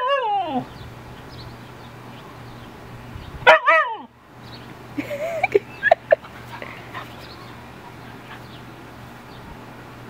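Siberian husky 'talking': drawn-out yowling calls that slide down in pitch, one at the start and another about three and a half seconds in, then a few short yips a second or two later.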